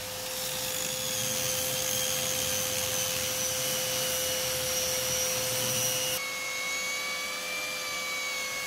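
Handheld electric rotary tool with a sanding drum running steadily with a high whine, sanding fibreglass laminate, with a dust-extraction vacuum hose drawing on it. The whine changes pitch abruptly about six seconds in.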